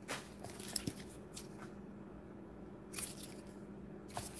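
A cardboard mailer wrapped in packing tape being picked up and turned over by hand: a few scattered soft rustles and taps over a faint steady hum.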